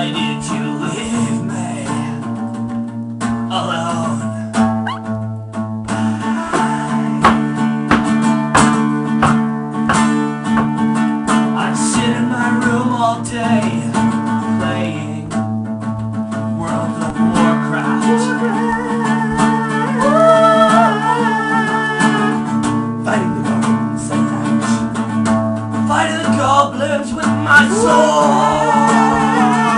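Acoustic guitar strummed continuously, with a man singing along at intervals in an improvised song.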